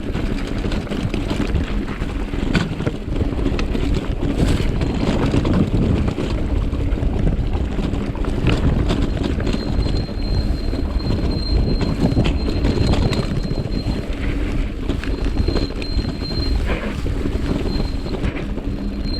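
Giant Talon mountain bike descending a rough trail, with wind noise and rattling throughout. From about halfway, the rear disc brake squeals in a thin high tone, on and off: a sign of the rear brake overheating on the downhill, which the rider puts down to a poorly done service.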